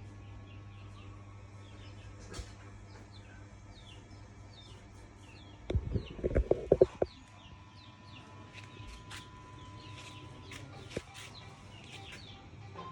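Small birds chirping over a steady low hum, broken about six seconds in by a loud run of quick clucks from a chicken lasting about a second.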